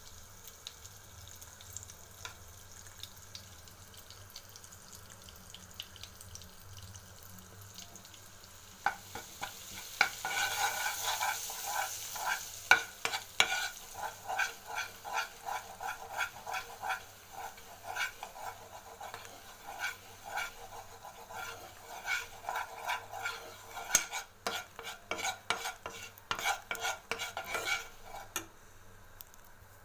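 Butter sizzling in a pan, with a steel spoon stirring it into a butter-and-flour roux for a white sauce. The sizzle grows louder about ten seconds in. After that the spoon scrapes the pan base in quick, repeated strokes.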